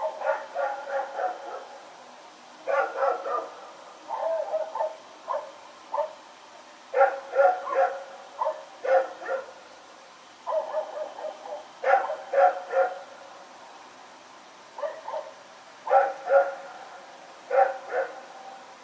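Belgian Malinois dog barking over and over, in quick runs of several barks separated by short pauses.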